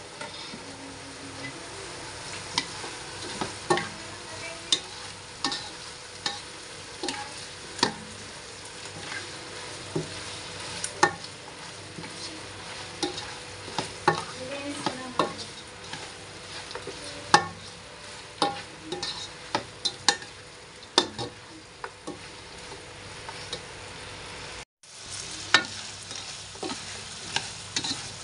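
Chicken pieces frying in soy sauce in a nonstick pan, a steady sizzle under irregular sharp clicks and scrapes of a spatula against the pan as it is stirred. The sound cuts out for a moment about three-quarters of the way through.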